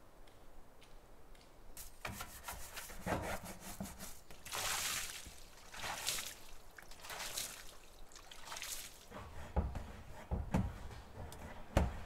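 Water sloshing and splashing in and out of a plastic IBC tote tank in several surges, spilling onto the ground at its base. In the last few seconds come a run of sharp knocks.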